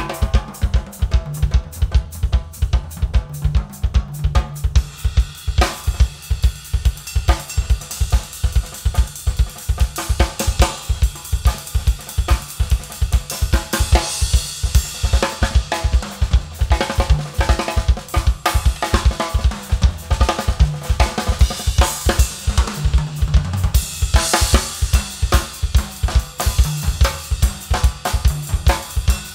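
Solo acoustic drum kit playing: a steady stream of rapid bass drum strokes under snare and tom fills and hi-hat. Zeus cymbal crashes swell about halfway through and again some ten seconds later.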